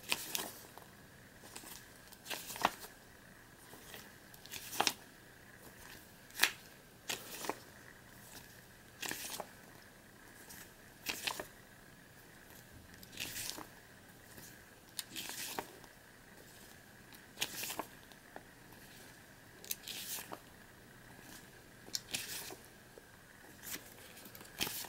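Pages of a paper booklet being turned one after another, a short papery swish every one to two seconds, some in quick pairs.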